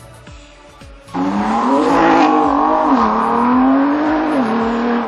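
Ford GT's 3.5-litre twin-turbo V6 coming in loud about a second in and accelerating hard. Its pitch climbs, then drops sharply twice as it shifts up a gear.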